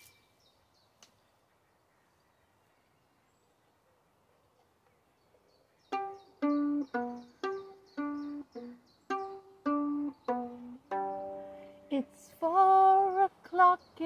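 Violin plucked pizzicato: a run of single notes, about two a second, starting about six seconds in after near silence. Near the end come a few longer held notes.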